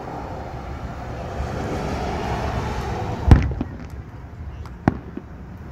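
Aerial firework shells bursting: one loud bang about three seconds in and a shorter, sharper bang near the end, over a steady background noise that swells before the first bang.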